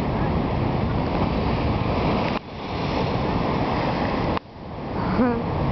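Heavy sea surf breaking against rocks, a dense rush of water noise mixed with wind buffeting the microphone; the sound twice cuts off sharply and swells back up. A brief voice exclamation comes near the end.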